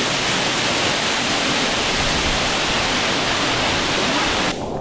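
Waterfall: the steady, dense rush of falling water close by, with the upper part of the rush cutting off suddenly near the end.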